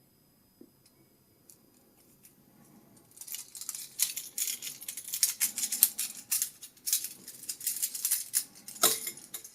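Toy handcuff set rattling and clinking as it is handled, a dense run of small metallic clicks and chain jangling that starts about three seconds in, after a few single clicks, with one sharper click near the end.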